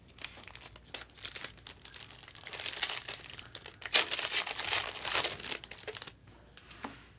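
Plastic wrapping on a sealed trading-card box crinkling and tearing as it is opened. A dense run of crackles grows loudest in the middle and stops about six seconds in.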